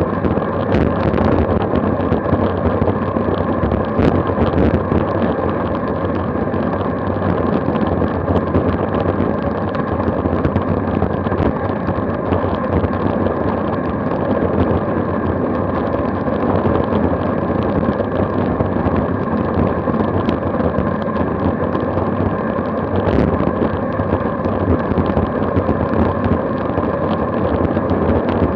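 Wind rushing over a bike-mounted action camera's microphone on a fast downhill run at about 36 mph: a loud, steady roar of air with road noise underneath.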